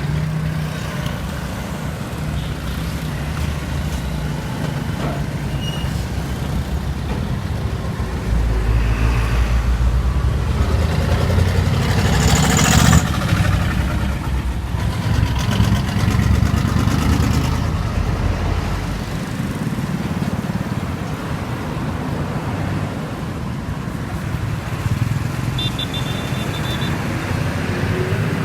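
Heavy truck engine running with a low rumble that grows louder for several seconds in the middle, with a short hiss about twelve seconds in and a brief high beep near the end.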